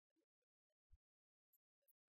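Near silence, broken by a few faint scattered ticks, with a slightly stronger low blip about a second in.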